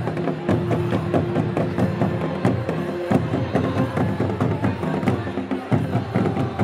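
Music with rapid, steady drumming under held notes.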